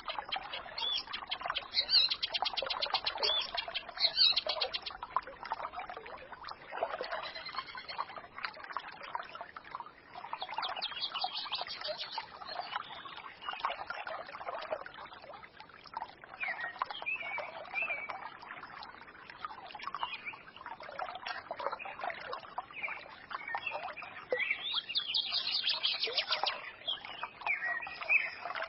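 A small forest stream trickling and babbling steadily while songbirds chirp and sing. A rapid, high trill stands out three times: near the start, in the middle and near the end.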